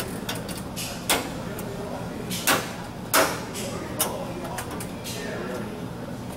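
A few sharp clacks of magnetic LED retrofit strips being set against and handled on a steel light-fixture housing, about four knocks spaced irregularly over a steady background hum.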